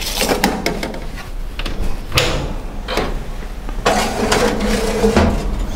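Metal roasting pan being pushed into a countertop electric oven: a string of clunks and clicks as the pan meets the oven rack, then a longer metal-on-metal scrape about four seconds in as it slides home.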